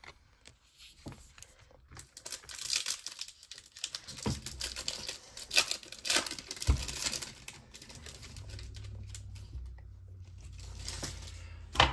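A foil trading-card pack wrapper being torn open and crinkled, in irregular rustling crackles for several seconds, with a single thump partway through.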